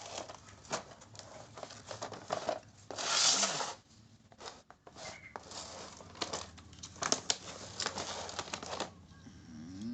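Toy packaging being torn open and crinkled by hand: irregular rustling and crackling with many short sharp strokes, and a louder tearing stretch about three seconds in.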